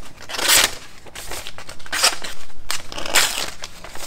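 Knife blade pushed through a sheet of paper in three rough passes, the paper crinkling and tearing rather than slicing cleanly: the freshly stone-sharpened edge is still not sharp.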